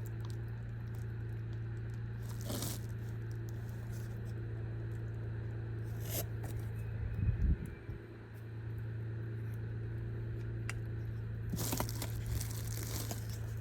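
Hands handling plastic blower-motor parts: scraping and rustling with a few sharp clicks and a low thump in the middle, busiest near the end, over a steady low hum.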